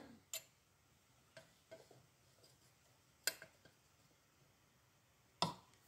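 A few light clicks and taps as a steel bearing outer race, fitted with a plywood centring disc, is handled and set onto the lathe's headstock casting, with the two loudest clicks about three and five and a half seconds in.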